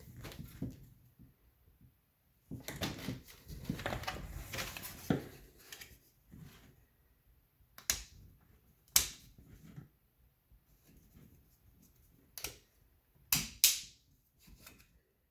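Handling noises with no motor running: a few seconds of rustling and knocking, then several separate sharp clicks, two of them close together near the end.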